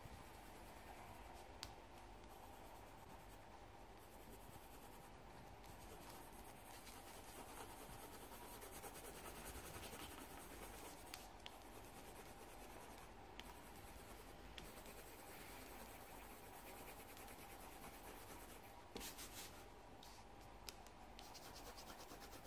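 Faint scratching of a coloured pencil shading on paper in continuous short strokes, over a faint steady hum.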